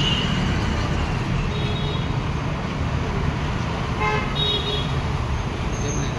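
Steady street traffic noise with vehicle horns tooting several times: once at the start, again about a second and a half in, and again about four seconds in.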